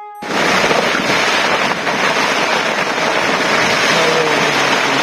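Loud, steady rush of stormy weather, strong wind with rain, cutting in abruptly just as a held musical note ends.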